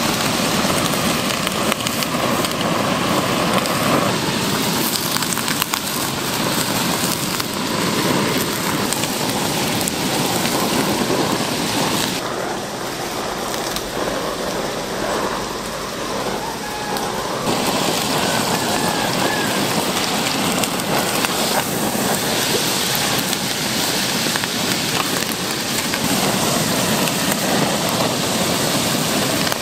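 Pork offal sizzling and crackling on a hot grill, a steady dense hiss. The crackle thins out for a few seconds in the middle, then comes back.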